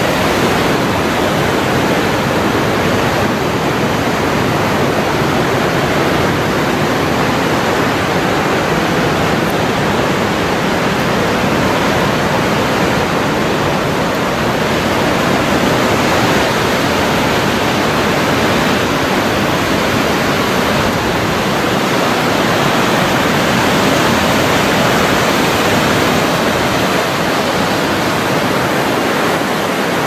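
Waterfall's falling water rushing loudly and steadily, with no change in level.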